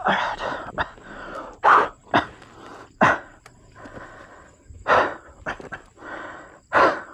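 A person panting hard, with loud puffs of breath about every one and a half to two seconds, straining to lift a dropped motorcycle on a steep slope.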